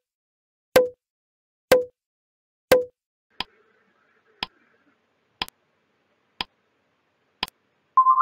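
Quiz countdown-timer sound effect ticking about once a second. The first few ticks are deeper and louder and the later ones lighter and sharper. As the count runs out near the end, a rising chime begins.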